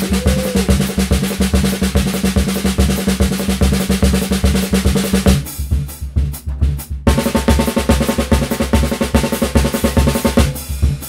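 Snare drum played with wooden sticks in fast, dense strokes. About five seconds in, the bright ring drops out for a second or so, then comes back with a higher ring.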